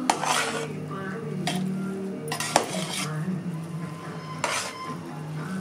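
Metal utensil clinking and scraping against a metal cooking pot several times while food is stirred and mixed.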